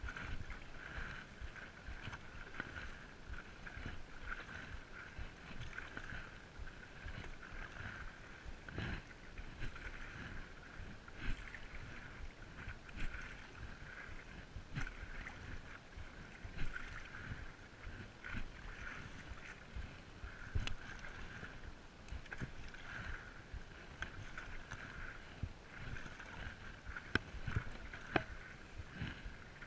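Stand-up paddleboard paddling: the paddle dipping and pulling through the water in regular strokes about every two seconds, with water splashing and lapping against the board.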